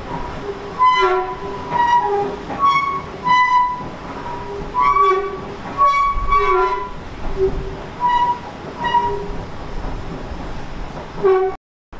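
A railway locomotive horn sounds in about ten short toots, one of them longer, over steady train noise. The sound stops abruptly near the end.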